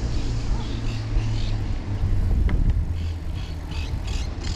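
Steady low rumble of wind and road noise while riding a bicycle, with a few brief higher-pitched sounds toward the end.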